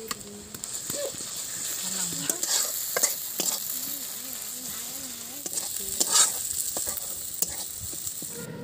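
Food sizzling in hot oil in a pan while a spoon or ladle stirs it, with scattered scrapes and clicks of the utensil against the pan. The loudest scrape comes about six seconds in.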